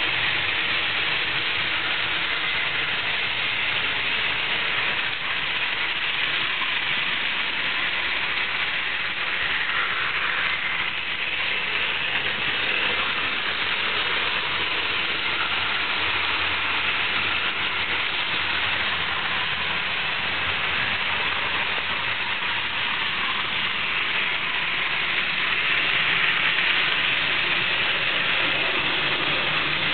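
Trix model train running on its layout track: the electric motor and metal wheels on the rails make a continuous, even running noise with no pauses.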